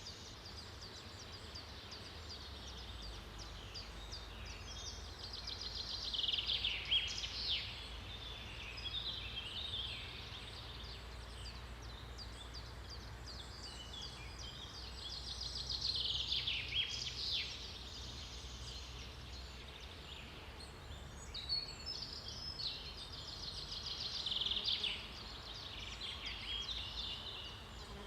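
Forest daytime ambience: songbirds singing in fast trills and chirps, swelling in three louder bouts about eight to nine seconds apart, over a steady low rumble.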